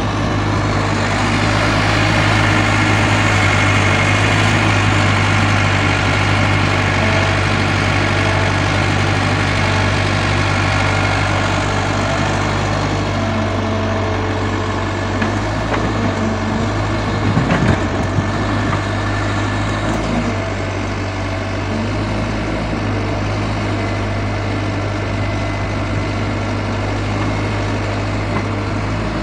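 Diesel engine of a Caterpillar tracked hydraulic excavator running steadily with a deep hum while it digs soil and loads it into a dump truck, easing off a little about halfway through. A short cluster of knocks a little past halfway.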